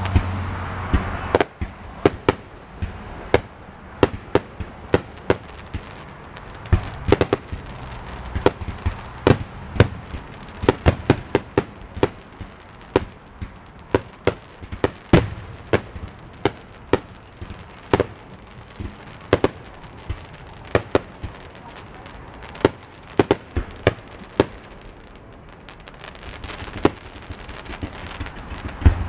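Aerial fireworks display heard from a few hundred yards away: after a dense rush of noise that breaks off about a second and a half in, shell bursts and salutes go off as dozens of sharp, irregular pops, thinning out near the end. The salutes' concussion comes through only as small pops.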